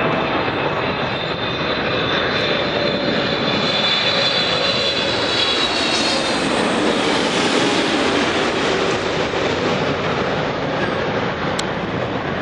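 Jet airliner engines passing close by: a loud, steady rush with a high whine that swells to its peak about midway, then eases off slightly.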